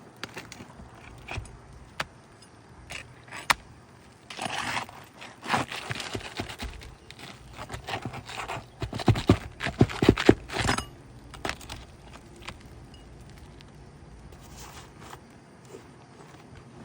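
3-tab asphalt shingles being pried and pulled loose with a roof snake: scraping and rasping with scattered clicks and knocks, busiest from about four to eleven seconds in, then quieter.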